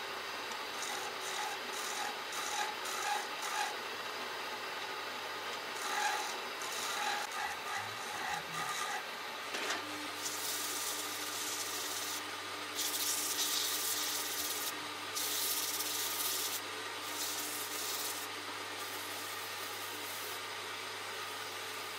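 Wood being rubbed with an abrasive, with a steady low hum underneath. The first half has short, irregular strokes; about ten seconds in a second steady tone joins the hum, and several longer, louder hissing passes follow.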